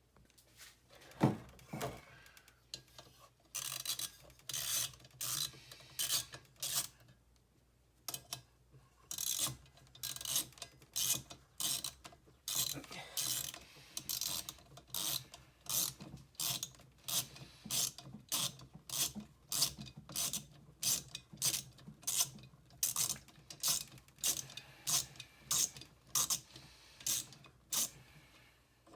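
Hand tool working on the leaf blower in short, repeated rasping or clicking strokes, about two a second, with a brief lull after the first few strokes.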